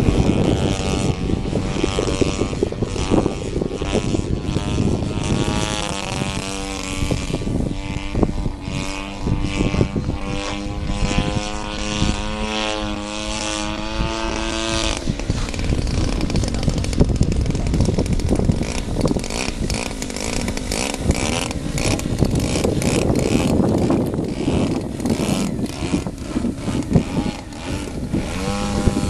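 Engine and propeller of a large radio-controlled Yak 54 aerobatic airplane hovering, the engine note wavering up and down as the throttle is worked to hold the hover. Gusty wind buffets the microphone throughout, and the engine tone fades into the wind about halfway through.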